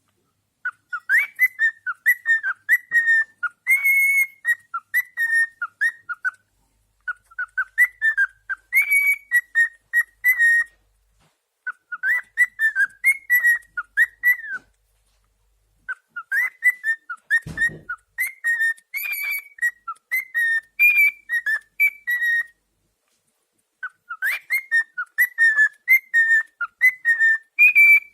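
Cockatiel whistling phrases of short, repeated, chirpy notes, broken by brief pauses. A single thump comes about two-thirds of the way through.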